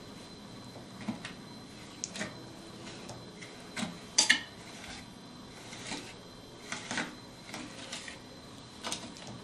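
Trowel spreading and scraping wet cement across a glass mirror in short, irregular strokes, the loudest a sharp pair of scrapes a little past the middle.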